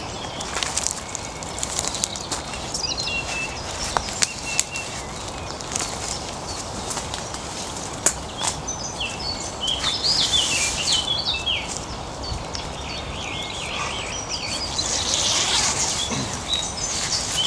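Small songbirds chirping and singing, with rustling and a few sharp clicks as a carp weigh sling and unhooking mat are handled and unfolded.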